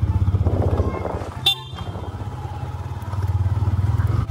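Motor scooter's single-cylinder engine running under way, a fast, even pulsing note that grows louder about three seconds in as the throttle opens. A short high beep cuts in about a second and a half in.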